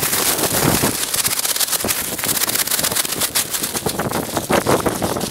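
Crackling rustle of a plastic bag of de-icing salt being shaken out, with salt granules pattering onto an icy sidewalk.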